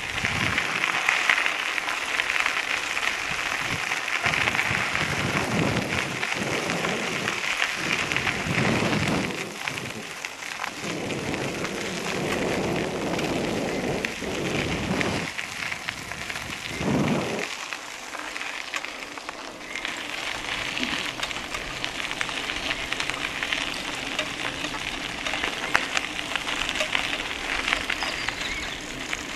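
Bicycle rolling along a dirt road: a steady hiss of tyres on grit and wind rushing over the microphone. Low rumbling gusts of wind buffet the microphone through the middle.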